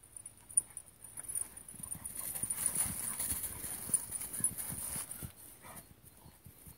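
A white boxer dog galloping over dry fallen leaves: a quick run of soft paw thuds with leaf rustle. It gets louder as the dog passes close, around the middle, then fades.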